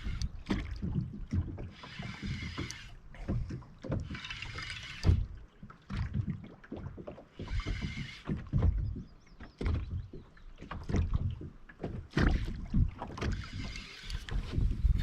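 A fishing reel being wound in short spurts of about a second, several times, as a hooked fish is played toward the boat. Underneath are a steady low rumble of wind on the microphone and scattered handling knocks.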